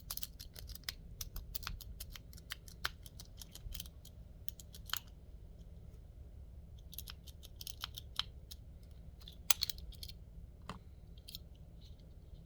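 Multipick Elite snake rake raking in a lock's keyway: irregular light clicks and ticks as it works the pins, with a pause of about two seconds midway.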